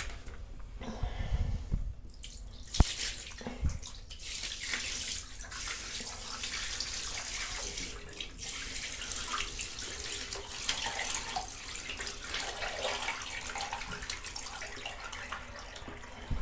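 Water poured from a bucket onto a newly fitted shower tray, splashing and running across it toward the drain as a drainage test of the tray's shallow slope. It starts suddenly with a knock about three seconds in, then runs steadily.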